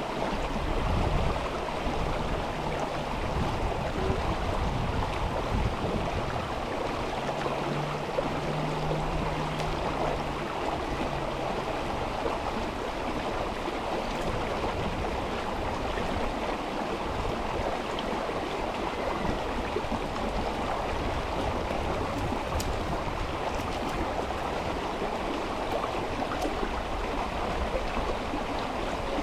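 River water rushing steadily over stones, an even continuous flow. A faint low hum sits under it for the first dozen seconds or so.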